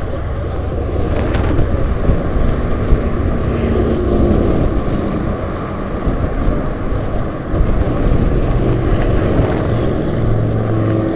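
Loud steady low rumble of wind on the microphone mixed with car traffic passing in the adjacent bridge lanes.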